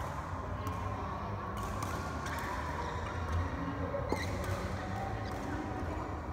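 Badminton play: a few sharp clicks of rackets hitting a shuttlecock, the clearest about four seconds in, followed by a brief shoe squeak on the court floor, over a steady low hum.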